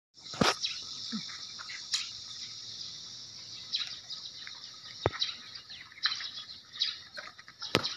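A steady high-pitched insect chorus, broken by a few sharp clicks.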